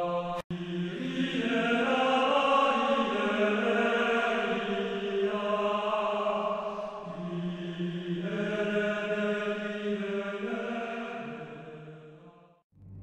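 Soundtrack music: a slow, chant-like vocal piece holding long notes that change pitch slowly, cutting out briefly about half a second in and fading away near the end.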